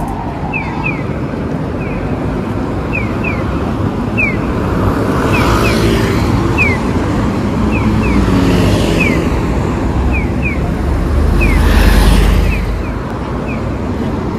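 Road traffic on a wide city street: buses and cars passing close by in several swells, the loudest about twelve seconds in. Short high chirps repeat in pairs throughout.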